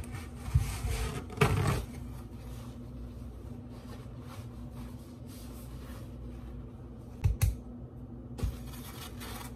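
Paper towel rustling as a sheet is pulled off and spread out on a countertop, with a few knocks on the counter, two close together about seven seconds in, over a steady low hum.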